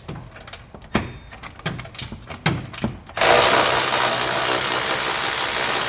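A few light clicks and taps as a cordless ratchet is fitted onto a nut, then about three seconds in the ratchet's motor runs steadily for about three seconds, spinning the nut off its bolt.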